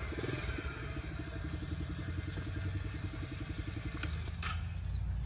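Single-cylinder 110cc engine of a Gas-Gas Gorilla Z 110 mini bike idling with an even putter. Near the end the putter drops out and a few sharp clicks and a short rattle are heard.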